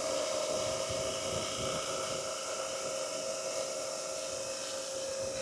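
Portable refrigerant recovery machine running steadily, its compressor and fan making a constant mid-pitched hum over an even hiss as it pulls R-410A refrigerant out of the system into a recovery tank.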